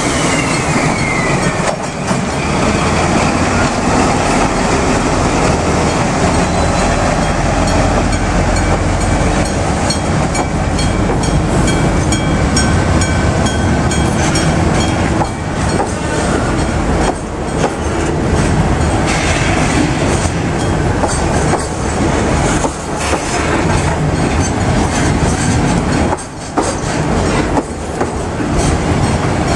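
Container freight train passing close by: wagon wheels clattering rhythmically over rail joints for the whole stretch, with faint wheel squeal at times.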